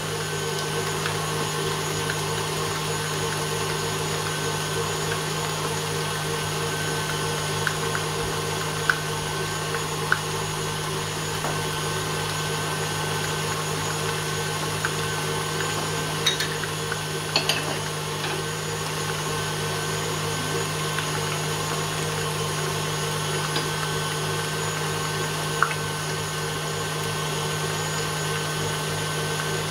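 Electric stand mixer running steadily, its motor humming as the beater mixes cake batter in a stainless-steel bowl, with a few light clicks scattered through.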